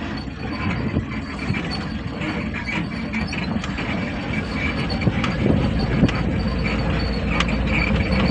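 Tata mini truck driving slowly over a rough, rutted dirt track, heard from inside the cab: the engine running low under a steady rumble, with the cargo body and cab rattling and creaking over the bumps.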